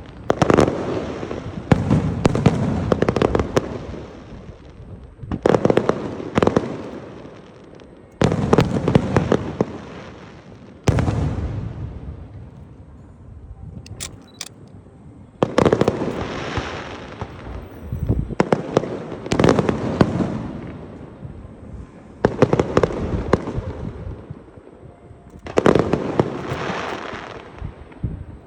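Fireworks bursting one after another in a display: about a dozen sharp bangs, each trailing off in a crackle over a second or two, with short lulls between.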